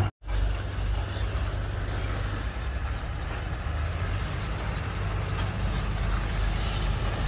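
Diesel engine of heavy earthmoving machinery running steadily with a low rumble. The sound cuts out for a moment just after the start.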